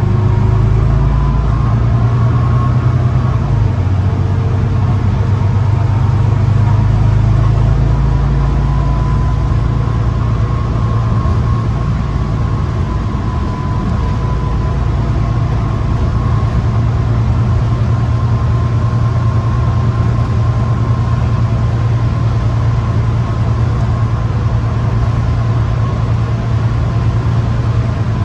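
Volvo B9TL double-decker bus running, heard from inside the bus: the low note of its six-cylinder diesel engine with a thin steady whine above it. The engine note shifts a few seconds in and again about eight seconds in.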